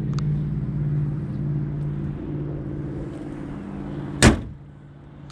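Hood of a Mercedes-Benz C300 pushed down by hand and slammed shut once, about four seconds in, over a steady low hum.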